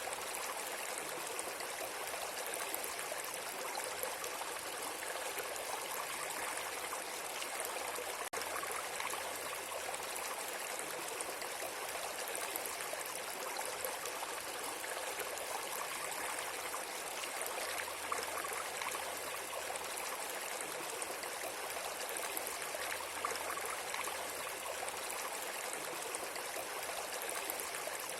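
Steady flowing water, a constant rushing trickle with no change.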